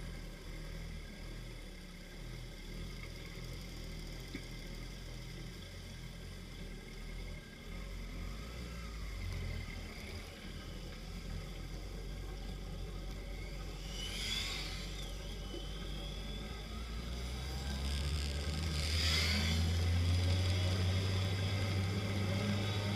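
Motorcycle engines running at low revs, then the motorcycle pulling away and picking up speed, its engine note getting louder over the last few seconds, with a couple of short hissy bursts along the way.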